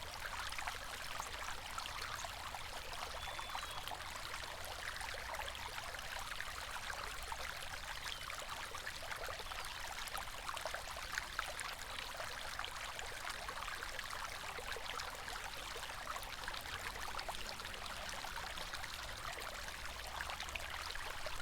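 River water flowing steadily: a constant rush of fine splashing and trickling over a low rumble.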